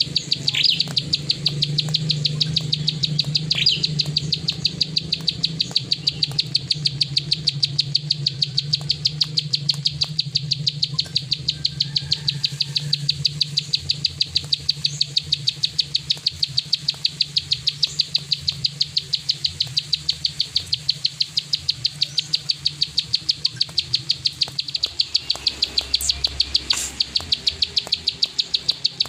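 Plain prinia giving its rapid, dry clicking call, a steady train of sharp ticks at about three a second that goes on without a break.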